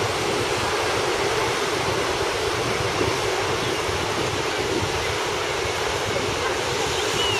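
Steady rushing noise of sea surf and wind on the coast, unbroken and even in level.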